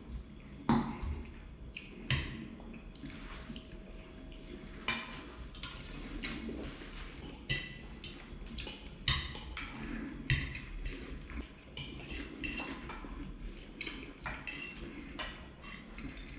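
Eating at close range: a metal fork clinking and scraping on a ceramic plate of pasta, with a handful of sharper clinks, and chewing and mouth sounds between them.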